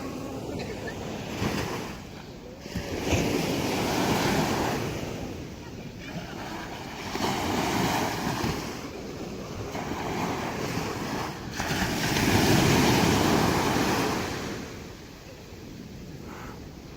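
Sea waves breaking on a sandy bathing beach, the surf swelling and easing in repeated surges every two to three seconds, the biggest wash coming about two-thirds of the way through.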